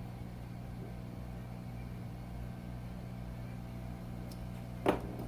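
Steady low electrical hum from the micro-soldering bench equipment, with one short sharp knock near the end.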